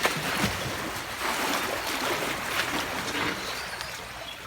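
Swimming pool water sloshing and splashing, an irregular rushing wash, as the pool is rocked by earthquake shaking.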